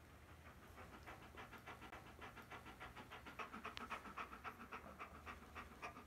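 A dog panting fast and evenly, several breaths a second, faint at first and stronger from about halfway through.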